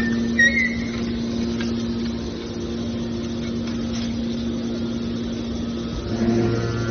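Hydraulic scrap metal baler's power unit running with a steady hum, its pitch holding level; a deeper hum joins about six seconds in.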